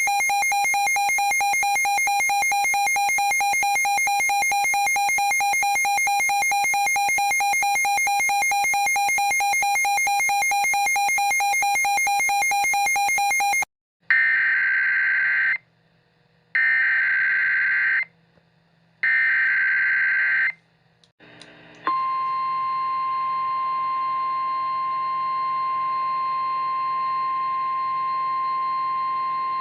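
A steady buzzy electronic tone for about fourteen seconds. Then three short screeching data bursts of a NOAA Weather Radio SAME header, followed by the steady 1050 Hz weather radio warning alarm tone announcing the next warning.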